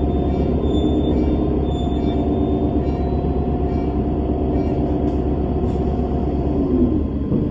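Bus engine and drivetrain running: a steady low rumble with a whining tone above it that shifts in pitch near the end.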